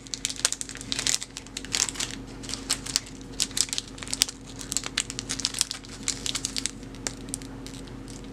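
Clear plastic packaging bags crinkling and crackling in irregular bursts as dice molds sealed inside them are handled and turned over.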